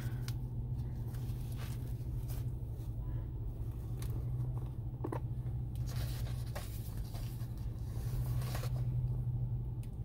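Car engine running, heard from inside the cabin as a steady low hum, with a few small clicks and rustles.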